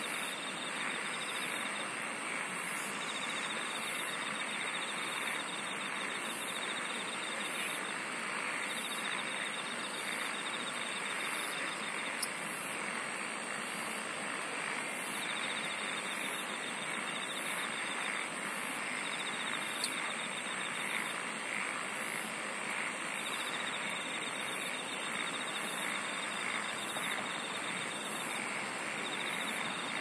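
A chorus of night insects singing. A high, pulsed chirp repeats about once a second over a steady high-pitched trill, while a lower buzzing trill starts and stops in stretches of a few seconds, all over a soft steady background hiss.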